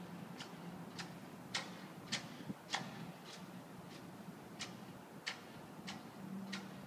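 Footsteps on a paved path, a sharp click a little under twice a second, steady and even, over a faint low hum.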